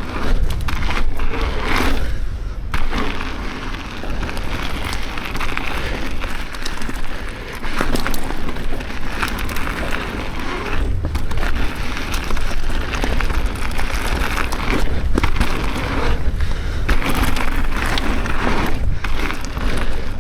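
Mountain bike rolling fast down a dirt singletrack: tyres crunching and clattering over dirt and roots, chain and frame rattling over bumps, with wind rumbling on the microphone.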